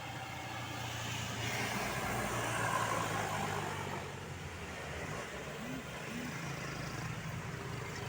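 Road traffic: a motor vehicle drives past, loudest about two to three seconds in, over a steady low engine hum.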